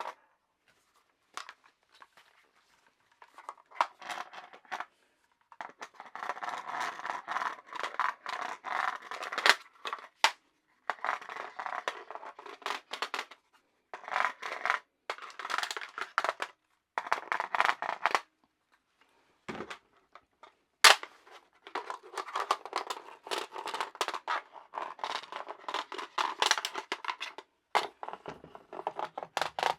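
Handling noise from an AK-pattern .300 Blackout pistol being worked in the hands: stretches of rattling and scraping separated by short pauses, with a few sharp clicks. The loudest click comes about 21 seconds in.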